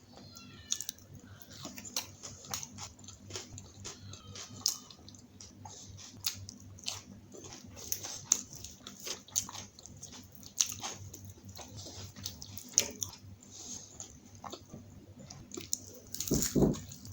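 A person biting and chewing food (butter naan, kadhai paneer and salad): many small wet clicks and crunches, with a louder thump near the end, over a faint steady low hum.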